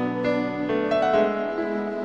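Background music: piano playing slow, gentle held chords.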